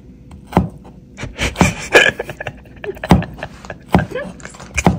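A large kitchen knife slicing cucumber on a plastic cutting board: the blade knocks sharply against the board about once a second, unevenly spaced.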